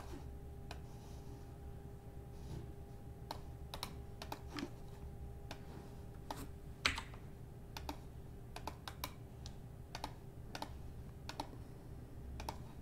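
Faint, irregular clicking and tapping of a computer keyboard and mouse, with a low steady hum underneath.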